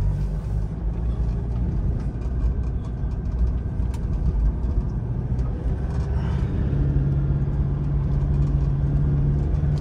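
Toyota Fortuner SUV driving over rough dirt, heard from inside the cabin: steady engine and tyre rumble, with a low engine drone growing stronger about seven seconds in.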